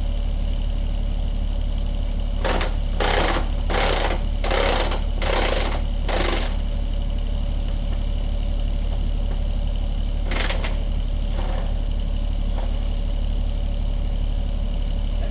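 John Deere 26G mini excavator's diesel engine running steadily. A quick series of six short bursts of noise comes a few seconds in, and one more about ten seconds in.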